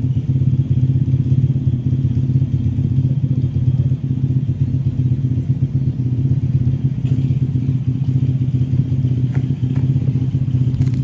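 Piranha pit bike's small single-cylinder four-stroke engine idling steadily, with no revving.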